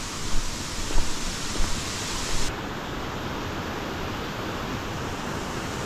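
Steady rushing of a waterfall, an even noise. During the first couple of seconds a few soft knocks stand out, and about two and a half seconds in the sound changes abruptly, then holds level.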